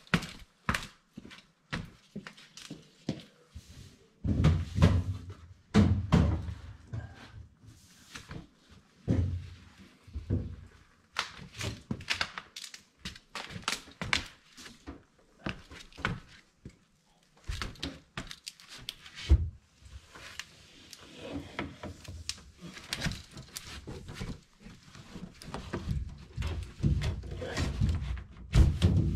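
Irregular thumps, knocks and scuffs of a drawer-type microwave oven being handled and shifted into place at a cabinet opening, with a sharp knock about two thirds of the way through and busier handling near the end.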